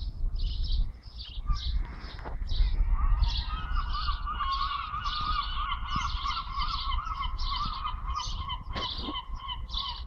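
Gull calls: from about three seconds in, a long wavering run of calls runs on to the end, over short high bird chirps repeating two or three times a second.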